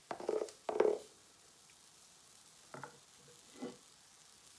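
Waffle batter ladled onto the hot plate of an electric heart-shaped waffle iron: two short bursts of sizzling and ladle scraping in the first second, then two fainter scrapes later on as the batter is spread.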